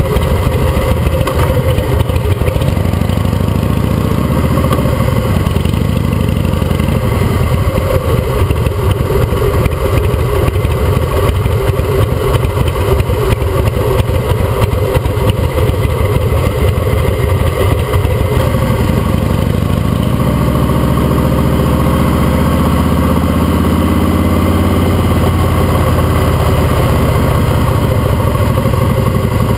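Custom Harley-Davidson V-twin motorcycle engine running under way, rising in pitch as it accelerates a few seconds in and again about twenty seconds in.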